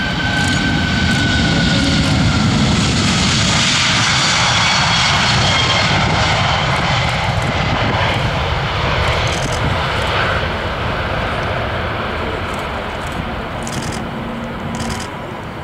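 Airbus A340-600's four Rolls-Royce Trent 500 engines at takeoff power as the airliner rolls past and climbs away: a high whine that falls in pitch as it passes, then a loud roar that slowly fades.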